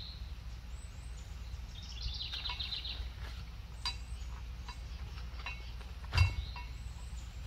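A wooden garden gate's latch clicks, and the gate knocks shut about six seconds in; that is the loudest sound. Under it runs a steady low outdoor rumble. A bird chirps at the start and gives a short run of repeated high notes about two seconds in.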